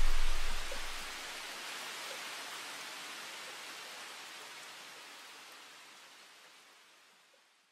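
Background music ending: its bass drops out about a second in, leaving a steady hiss that fades away to silence.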